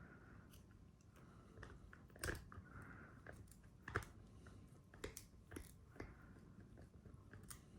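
A dog chewing a crunchy treat: quiet, irregular crunches and bites, the sharpest about two seconds and four seconds in.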